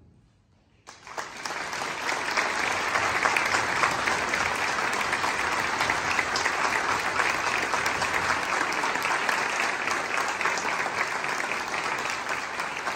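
Concert audience applauding: a hush of about a second, then applause breaks out suddenly and goes on as dense, steady clapping.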